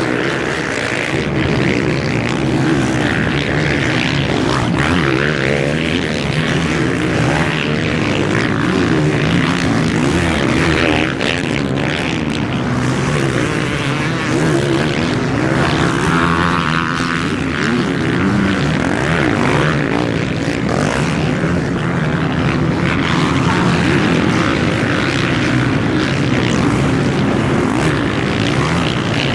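Engines of several off-road motorcycles racing across sand dunes, running and revving at once in a continuous buzz whose pitch rises and falls.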